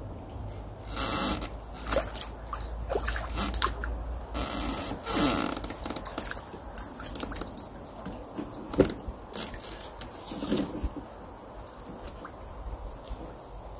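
A hooked crucian carp being landed with a landing net: irregular small splashes and sloshing water, mixed with scrapes, clicks and knocks of the net's telescopic pole. A sharp knock about nine seconds in is the loudest sound.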